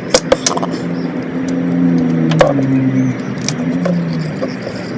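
A few sharp metallic clicks and knocks from hand tools working a transmission plug, over a low droning hum that drops in pitch a couple of times.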